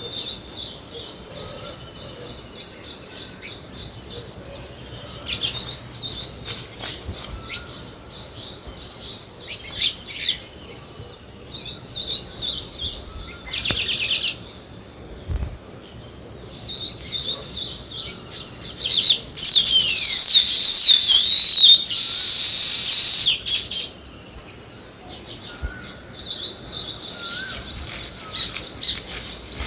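Small birds, sparrows and weaver birds, chirping busily with many quick high notes. Midway there is a fast rattling run of chirps. About two-thirds through comes the loudest part: a burst of sweeping downward notes followed by a harsh hissing buzz lasting about a second and a half.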